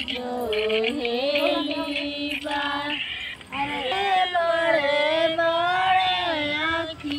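A woman's voice singing a slow devotional melody in long, wavering held notes, with a brief break a little past the middle. Chhath Puja songs of this kind are traditionally sung by women.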